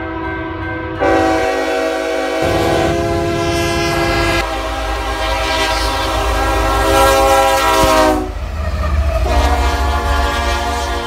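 Diesel locomotive air horns sounding chords of several notes, one blast after another, each new one starting abruptly. One horn drops slightly in pitch just before the next takes over. Under the horns is the low rumble of the passing trains.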